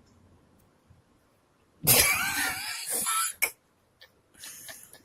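A person's voice: a loud, rough cough-like outburst with a wavering pitch about two seconds in, then a shorter, quieter one near the end.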